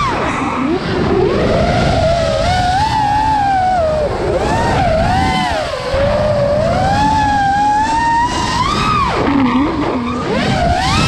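Brushless motors and propellers of an iFlight Nazgul 5 FPV quadcopter, heard from the onboard GoPro, whining in a tone that rises and falls with the throttle over a rush of wind. The pitch sweeps up and down continuously and drops low for a moment near the end.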